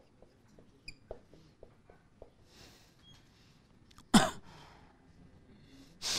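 Felt-tip marker on a whiteboard, tapping and squeaking in short strokes as letters are written, with a hissing stroke near the end. About four seconds in, a loud, short sound falls sharply in pitch.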